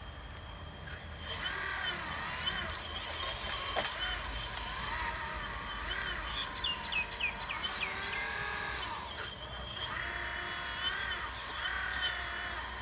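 Hydraulic pump and motor of an all-metal 1:12 RC excavator working, its whine rising and falling in pitch as the load changes. It starts about a second and a half in and pauses briefly near the end.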